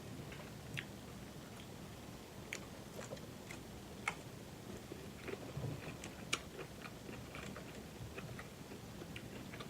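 Faint close-miked eating sounds: a person chewing, with scattered small wet clicks and lip smacks.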